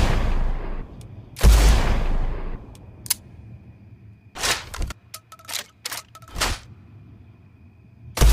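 Sawed-off shotgun sound effect: the tail of a shot at the start, then one loud blast about 1.5 s in with a long rumbling decay. Between about 3 and 6.5 s in comes a run of short metallic clicks and clacks, typical of the gun being reloaded, over a faint steady high tone. The next blast begins right at the end.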